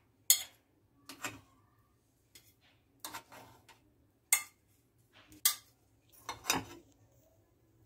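Light clicks and knocks as a wooden skewer and a plate strike a nonstick appe pan while the cooked appe are picked out onto the plate. They come as a string of irregular sharp taps with short pauses between them.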